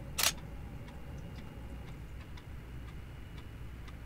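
A Canon DSLR shutter firing once about a fifth of a second in, a short sharp clack. Faint scattered ticks and a steady low hum run underneath.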